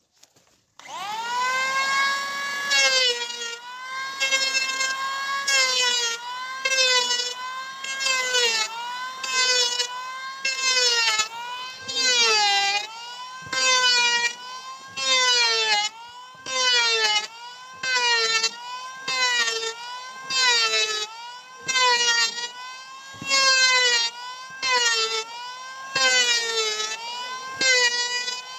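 Electric hand planer starting up about a second in, its motor whine rising to full speed. It then shaves a wooden beam in repeated passes, about one every second and a half, with the whine dropping in pitch under each cut and recovering between passes.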